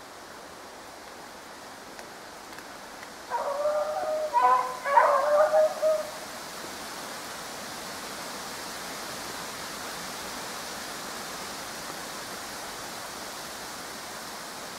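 Beagles baying on a hare chase: a run of pitched bays lasting about three seconds, starting about three seconds in, over a steady hiss.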